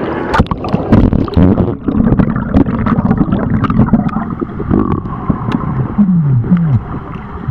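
Pool water sloshing and churning around a camera at the surface, then the muffled rumble of the pool heard underwater, with many sharp clicks and a couple of short low falling tones near the end.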